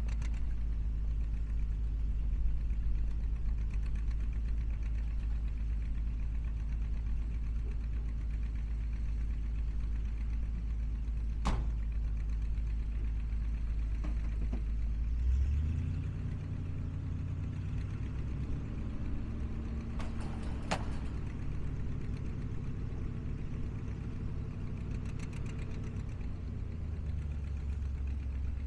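1971 International Harvester Loadstar 1600 truck engine idling steadily. About halfway through, the engine note rises and holds as the hydraulic hoist raises the dump bed, then drops back near the end. A sharp knock comes shortly before the change, and another during the lift.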